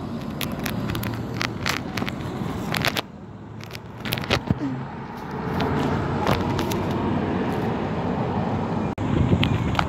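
A single-decker bus engine and passing road traffic, rumbling low and steady, with many sharp clicks on the microphone. The sound drops away abruptly about three seconds in, comes back louder around the middle, and cuts out for an instant near the end.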